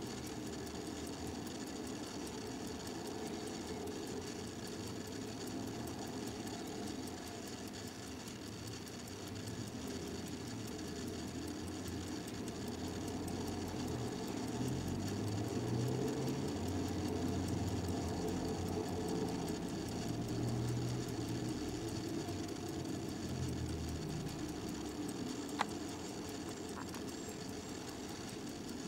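Molnija 18-jewel mechanical pocket watch ticking steadily over a low background rumble, with one sharp click near the end.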